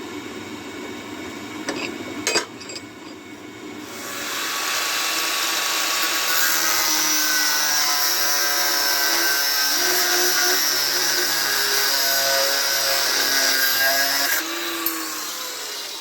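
An electric power tool starts about four seconds in and runs steadily with a high whine for about ten seconds, then stops near the end.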